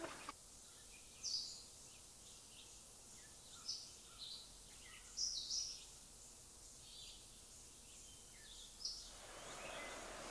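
Birds chirping faintly in short, high calls every second or two over a faint steady hiss. About nine seconds in, a broader rushing noise rises.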